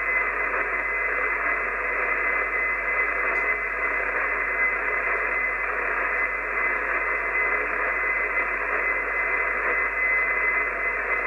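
Icom IC-751 HF receiver putting out steady hiss and static on an empty channel, with a thin steady whistle under the hiss: no station is transmitting.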